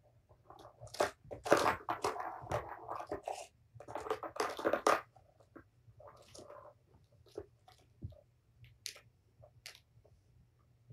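Plastic balls clattering and rattling round the tiers of a Tower of Tracks cat toy as kittens bat at them, in two longer bursts of small clicks and then scattered ticks.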